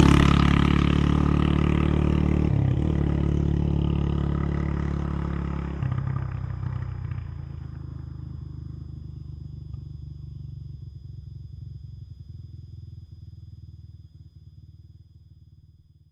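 A vehicle engine pulling away, its pitch breaking with gear changes about two and a half and six seconds in, then fading steadily into the distance.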